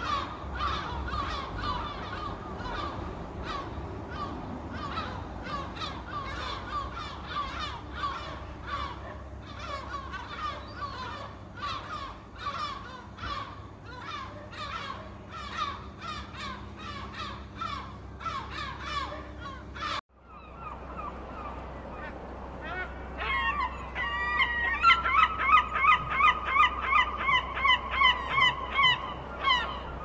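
A flock of gulls calling over one another, many short cries overlapping without pause. After a sudden cut about two-thirds through, a single gull gives a loud, rapid string of repeated calls, about three a second.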